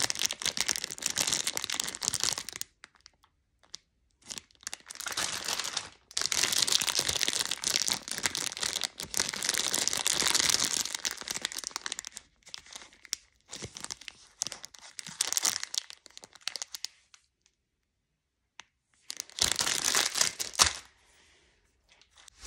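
Clear plastic candy wrappers crinkling as they are handled and squeezed, in several bursts of a few seconds each with short pauses between them.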